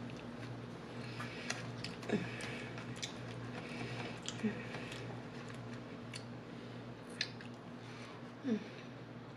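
Close-miked chewing of a calzone: wet mouth clicks and smacks, with a few short falling hums of enjoyment, over a steady low hum.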